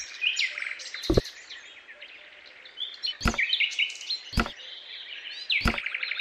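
Small birds chirping and tweeting continuously, with four sharp knocks spread through as modelling-clay roof pieces are set onto a miniature house.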